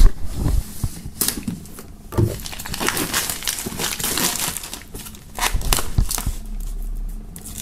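Plastic shrink-wrap film crinkling and tearing in irregular bursts as it is slit with a pocket knife and peeled off a cardboard box.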